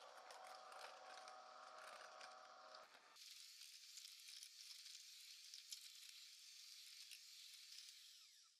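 Faint electric hand mixer beating a butter mixture in a glass bowl: a steady motor whine for about the first three seconds, then a softer hiss of the beaters churning through the creamed butter with small ticks, fading out at the end.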